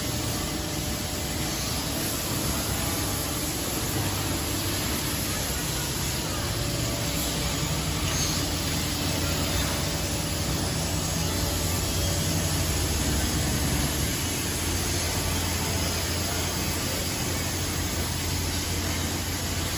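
Steady machinery noise of a CNC machining workshop, a constant hiss over a low hum.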